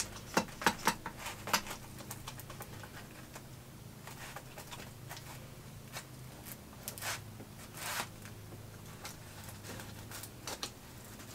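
Faint irregular clicks and scrapes of a butter knife against the metal rim and band of a 4-inch springform pan as the edge of a baked cheesecake is loosened, over a low steady hum.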